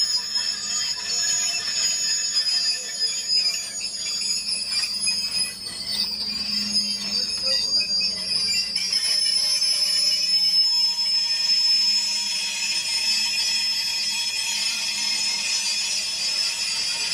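Open passenger cars rolling slowly with their hand brakes applied, the brake shoes and steel wheels giving a steady high-pitched squeal.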